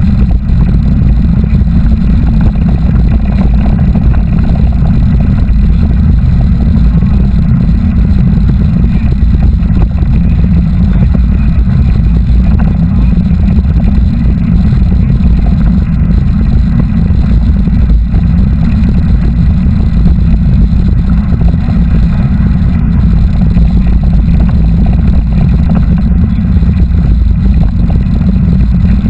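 Steady, loud wind rumble buffeting the camera microphone during a mountain bike ride, a deep continuous roar with little above it.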